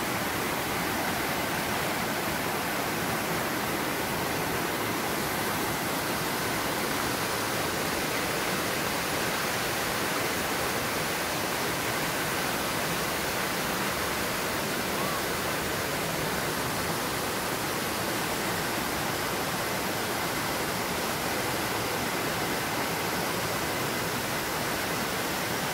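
Water of a shallow, rocky stream running over and between stones: a steady, unbroken rush.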